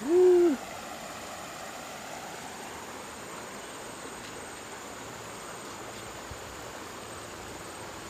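Steady rush of a fast-flowing shallow river with insects buzzing. A brief voiced sound, rising then falling in pitch, stands out loudest right at the start.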